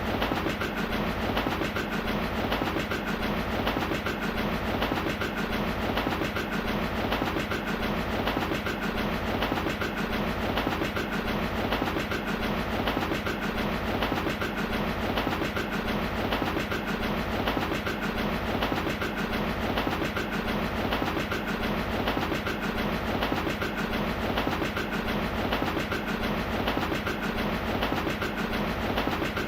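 Train running along the track, its wheels clicking over the rail joints in a steady, even rhythm: a recreated railway sound effect.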